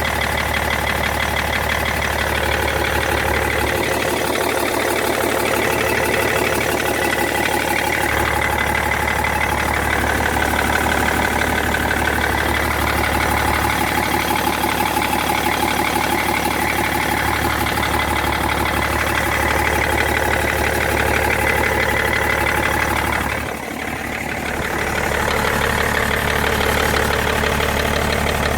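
BMW E60 530d's straight-six diesel idling steadily, with a ticking from under the bonnet that the owner finds strange and cannot explain. The sound drops briefly in level about three-quarters of the way through.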